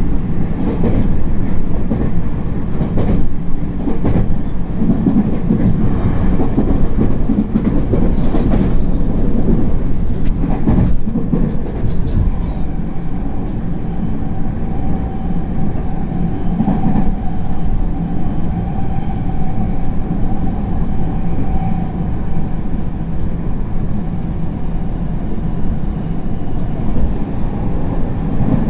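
Running sound inside a JR West 225 series 5100 subseries electric multiple unit at speed: a steady rumble with wheels clicking over rail joints through the first half. A steady whine joins the rumble from about halfway and fades again later on.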